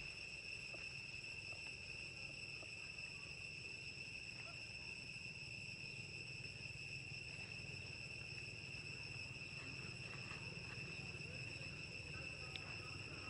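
Steady high-pitched insect drone: one unbroken tone with overtones, holding its pitch throughout, over a faint low rumble.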